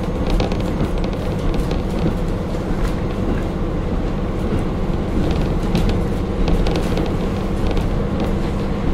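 Inside a KiHa 40 diesel railcar: its diesel engine drones steadily, with scattered light clicks and rattles from the car.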